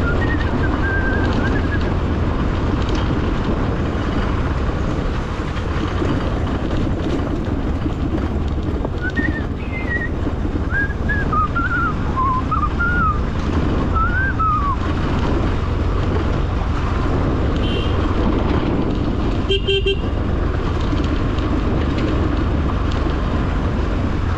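Motorcycle engine running, with wind and tyre noise over a rough gravel road. A short horn beep sounds about twenty seconds in. Faint high whistled notes rise and fall in the first half.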